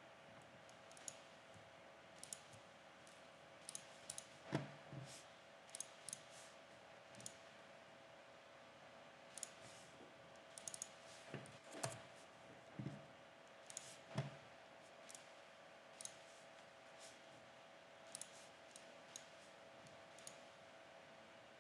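Faint, irregular clicking of a computer mouse and keys during CAD work, a few clicks louder with a dull knock, over a faint steady hum.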